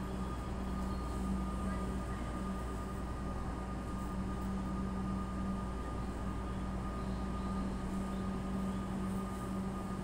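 Steady low hum and rumble with a constant tone from a train standing at the station platform.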